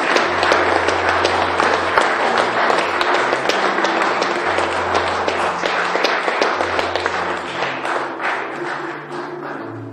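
Audience applauding, a dense clatter of many hands, with music and low held notes playing underneath. The clapping thins out over the last second or so while the music carries on.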